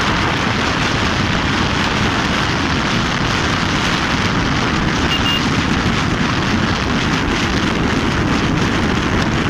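Steady rushing wind on the microphone of a moving motorcycle, with road noise mixed in.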